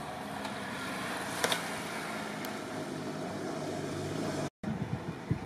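Motorcycle engine running steadily as it follows a cyclist through a bend, growing a little louder over the first few seconds, with a sharp click about a second and a half in. The sound drops out briefly near the end.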